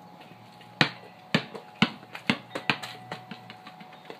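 Basketball bounced on a concrete patio: about five sharp smacks roughly half a second apart, starting about a second in, followed by a few fainter taps.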